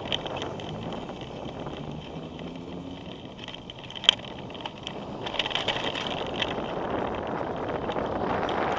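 Wind buffeting and rolling road noise picked up by a camera riding on a bicycle along a city street, with one sharp knock about four seconds in. The noise grows a little louder over the second half.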